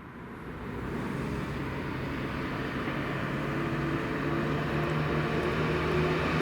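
A motor vehicle's engine running, with a steady low hum and road noise that grow gradually louder throughout.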